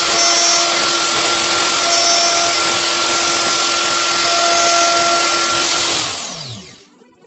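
Electric power tool running steadily at full speed, then switched off about six seconds in and spinning down, its pitch falling as the motor stops.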